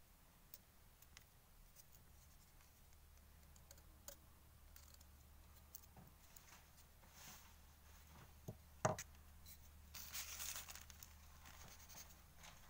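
Faint clicks, taps and scrapes of a knife working a reed calame against a wooden block while the bevelled nib is cut and trimmed. There is a sharper click about nine seconds in, then a short scratchy rustle.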